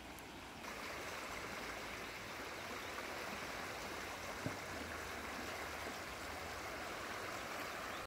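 Fast-flowing river water rushing steadily, a little louder from about a second in.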